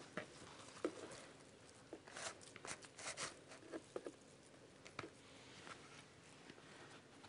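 Faint hand-handling sounds: raw minced meat scooped from a plastic bowl and pressed into round flatbread for hawawshi, heard as a few soft taps and rustles over quiet room tone.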